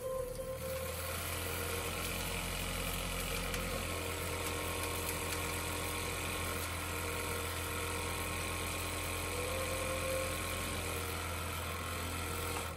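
Lionel model train running on the layout: a steady mechanical hum with a low electrical buzz. The lowest part of the buzz drops away about four seconds in.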